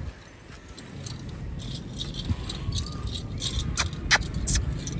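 Light jingling and clicking from the ankle bells of a zebu bull as it is walked on a rope, with a few sharper clinks near the end.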